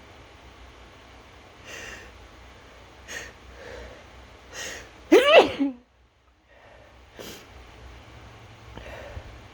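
A person sneezes once, loudly and with voice, a little past halfway, after a few short catching breaths as the sneeze builds. A couple of faint breaths follow.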